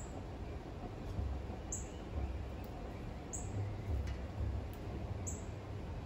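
Small birds calling: a short, very high note repeats about every one and a half to two seconds, with fainter chirps in between, over a steady low rumble.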